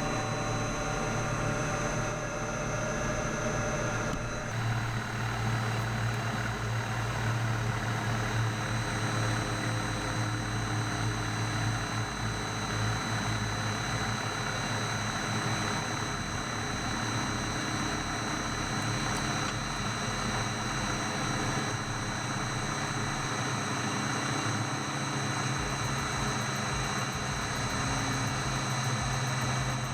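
Kokusan top-discharge centrifuge running: a steady motor hum with a thin, constant high whine above it.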